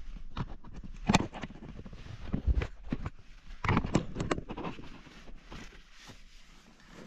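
Irregular knocks, clicks and rustling, with the sharpest knocks about a second in and about four seconds in, fading toward the end.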